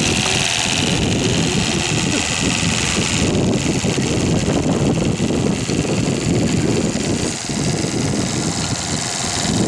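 Stuart Turner TVR1a twin-cylinder model steam engine running on steam from a model Yarrow boiler: a fast, continuous beat, with a hiss that drops away about three seconds in.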